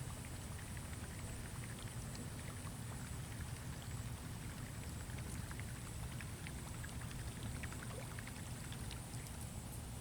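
Strong wind rumbling steadily on the microphone, with scattered faint ticks and small water sounds over it.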